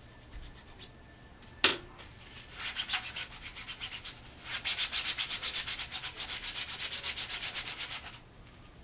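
A cloth rag rubbed rapidly back and forth over a 3D-printed plastic axe head, working black paint into it as weathering, at about eight strokes a second. The rubbing starts a couple of seconds in, gets louder after a short pause, and stops near the end. Just before it starts comes a single sharp knock, the loudest sound.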